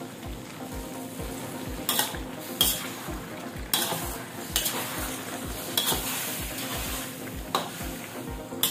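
Raw marinated chicken pieces sizzling in a metal wok while a metal spatula stirs and turns them, knocking and scraping against the pan about half a dozen times.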